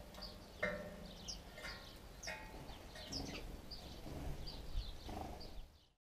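Sparrows chirping: short high calls come roughly once or twice a second, with some lower, fuller calls mixed in. The sound fades out at the very end.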